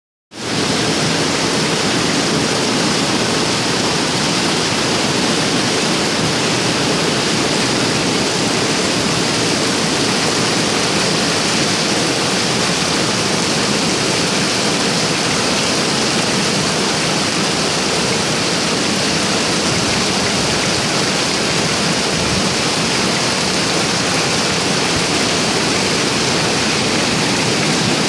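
Heavy rain falling steadily, a loud, even hiss with no let-up.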